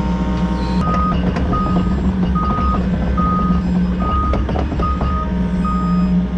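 Heavy diesel machine engine running steadily, with a backup alarm starting about a second in and beeping evenly, a little faster than once a second, over some scattered knocks and rattles.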